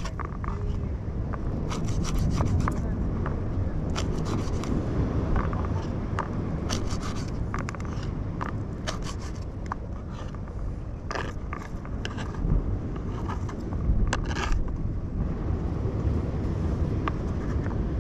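Serrated knife sawing and scraping through anchovy strips on a plastic cutting board, in short irregular strokes and taps, over a steady low rumble.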